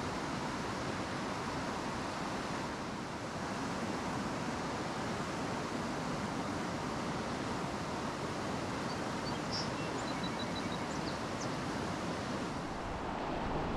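Rapids on the Frying Pan River rushing, a steady noise of fast whitewater over rocks. A few faint high chirps come about ten seconds in.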